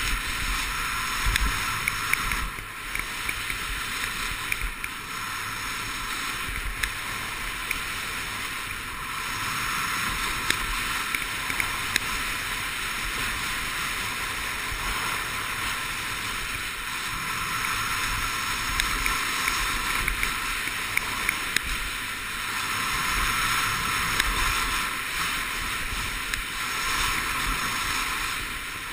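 Skis sliding and carving on packed snow, with wind rushing over the camera's microphone: a steady hiss that swells and eases with speed, broken by scattered short clicks and knocks.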